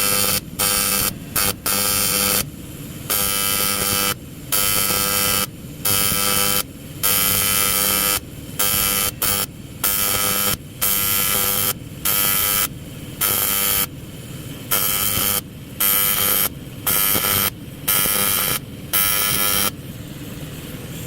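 Electric welding arc on an aluminium fuel tank patch, buzzing in short stitch-weld bursts about once a second, each started and stopped, until it falls quiet near the end.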